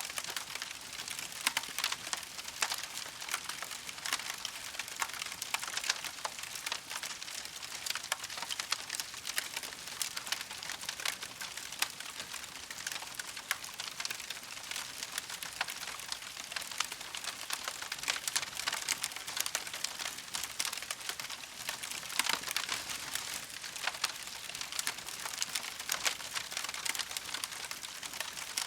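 Wood campfire burning steadily, with dense continuous crackling and frequent sharp pops over a soft hiss.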